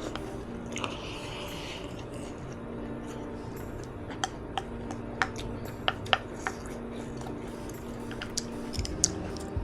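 Close-miked eating of kimchi jjigae: wet chewing with a scattering of sharp mouth clicks and smacks, about seven of them through the middle and near the end.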